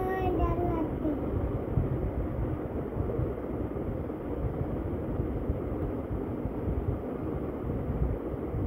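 Steady low rumbling noise, with a short wavering voice-like call fading out in the first second.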